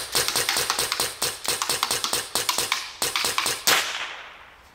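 Huben GK1 semi-automatic PCP air pistol, the Germany-legal 7.5-joule version, fired in rapid succession: a quick string of sharp shots, several a second, that stops about three-quarters of the way through and dies away.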